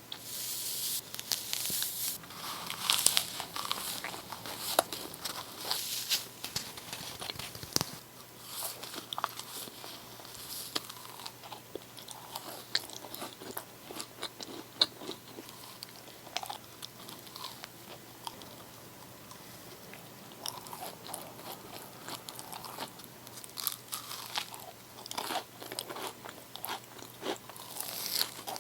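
Close-miked eating of crisp desserts: crunchy bites followed by chewing. The crunching is densest in the first several seconds and again near the end, with softer chewing between.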